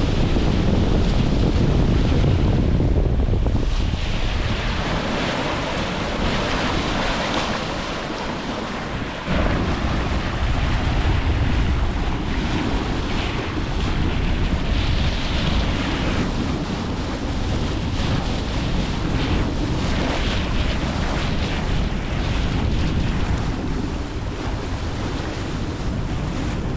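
Wind buffeting the microphone over the rush and splash of water along the hull of an Island Packet 485 sailboat under sail. The sound changes abruptly about nine seconds in.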